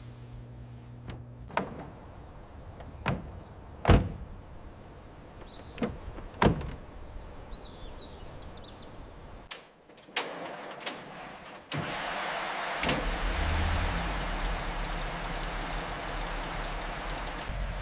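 Car doors and fittings clicking and clunking several times, the loudest knock about four seconds in. Then a steady rumble with hiss sets in suddenly about twelve seconds in and holds.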